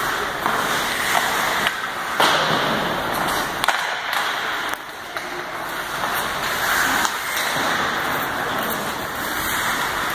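Ice hockey play on an indoor rink: skates scraping and carving the ice, with a few sharp clacks of sticks and puck.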